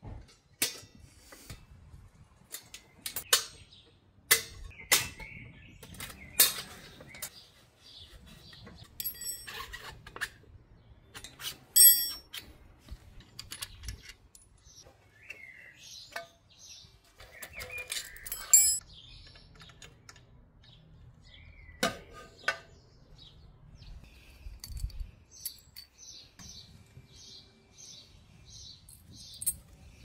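Hand tools and metal engine parts being handled: scattered clinks and knocks, the loudest at about 12 and 18.5 seconds with a brief metallic ring. Near the end there is a quick, even run of short high chirps, about three a second.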